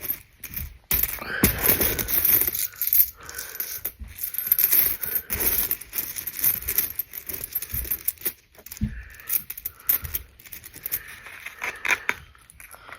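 Pennies clinking against one another as they are handled and counted, a steady run of irregular small metallic clicks and jingles.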